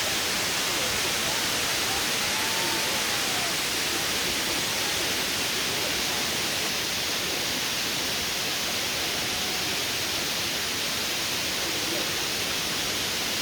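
Steady, even rushing noise, strongest in the upper range, with no breaks or rhythm; faint rising-and-falling high sounds drift over it.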